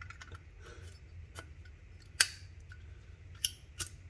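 A few sharp metallic clicks from a Zippo lighter being handled, lid and striker wheel. The loudest comes a little after two seconds in, and two more follow close together near the end.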